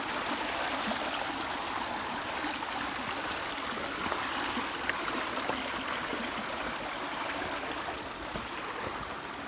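Steady rush of water falling and running in a mountain waterfall and stream.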